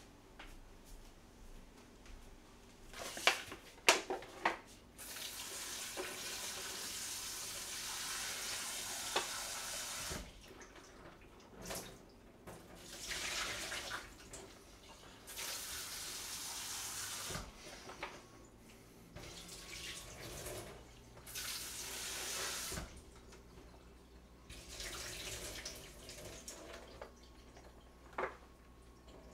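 Kitchen tap running in several spells of a few seconds each, turned on and off while tteokbokki rice cakes are rinsed under it at the sink. A few sharp clicks and knocks come about three to four seconds in, before the water first starts.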